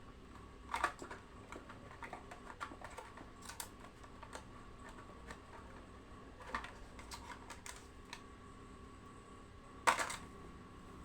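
Scattered small clicks, taps and rustles of a phone box's contents and charger being handled, with a sharper clack about ten seconds in.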